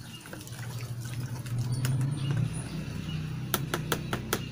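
Liquid fungicide mix being stirred with a brush in a plastic tub, with light sloshing. A low steady hum swells in the middle, and a quick run of sharp clicks comes near the end.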